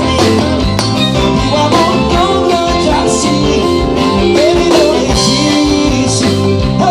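A live gospel band playing a song: drums with regular cymbal hits, bass and guitar, with a voice singing a sung line at times.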